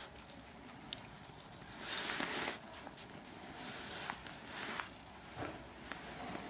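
Footsteps crunching through snow: a few short, irregular crunching stretches with small clicks between them.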